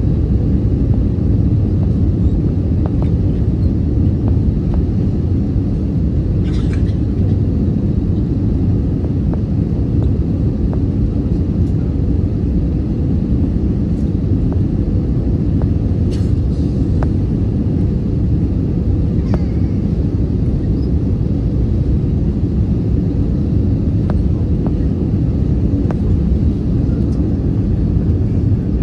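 Steady low rumble of an Airbus A319's engines and airflow, heard inside the passenger cabin, with a faint steady tone and a few light ticks.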